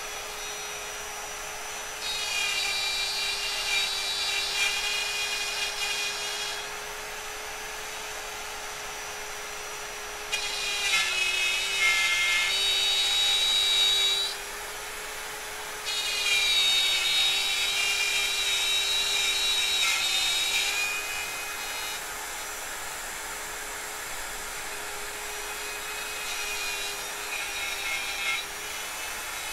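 Electric wood router running at full speed with a steady high whine. It cuts into wood three times, each for several seconds, starting about 2, 10 and 16 seconds in, and each cut is louder and harsher. Shorter, lighter cuts come near the end.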